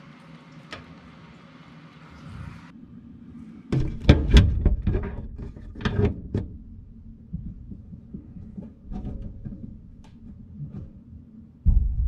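A steady hiss that cuts off about three seconds in, then a run of heavy knocks, thuds and clatter from something being handled, thinning to scattered clicks, with one loud thump near the end.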